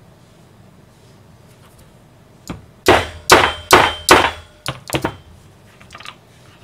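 Metal snap fastener being set into leather by striking a metal snap-setter rod with the back of a hatchet: a light knock, then four hard metal-on-metal blows about 0.4 s apart with a slight ring, then a few lighter taps.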